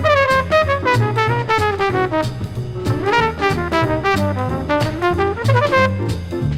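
1955 hard-bop jazz quintet recording of trumpet, tenor saxophone, piano, bass and drums, played from a vinyl LP. A horn plays a line that slides up and down, over a walking bass and steady cymbal strokes.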